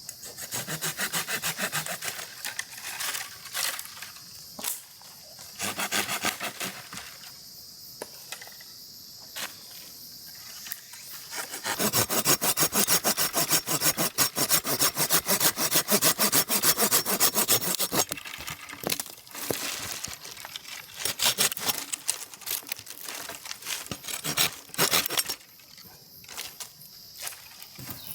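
Folding pull saw cutting firewood by hand, in bursts of quick back-and-forth strokes, with one long steady run of sawing in the middle.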